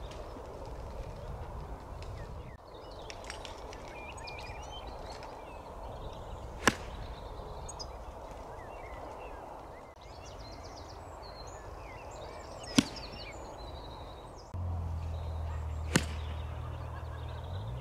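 Three golf shots, each a single sharp click of the club striking the ball off the tee, about six and then three seconds apart. Birds chirp in the background, and a low steady hum comes in near the end.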